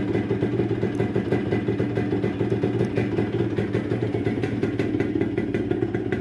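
Yamaha RXZ's two-stroke single-cylinder engine idling steadily.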